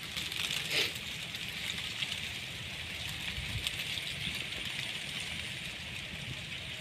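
Open-field outdoor ambience: wind rumbling unevenly on the microphone under a steady high hiss, with one brief louder swish about a second in.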